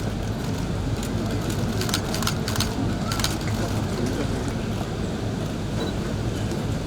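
Steady low rumble of outdoor background noise, with a few short sharp clicks.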